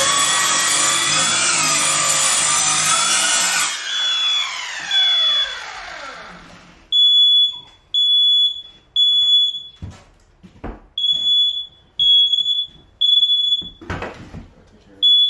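Electric saw with a dull blade cutting through plywood flooring, then released and spinning down with a falling whine. A smoke alarm then beeps loudly about once a second, with a few knocks between the beeps.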